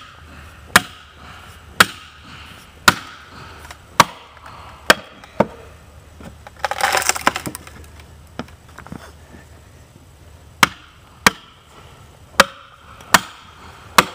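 Hatchet chopping and splitting blocks of western red cedar: sharp woody strikes about once a second, about a dozen in all, with a gap of a few seconds around the middle, where there is a short burst of rustling noise.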